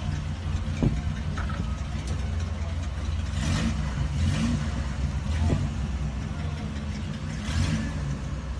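Early-1960s GMC pickup's engine idling with a low, even exhaust rumble as the truck creeps forward. Three short hisses sound over it, twice close together in the middle and once near the end.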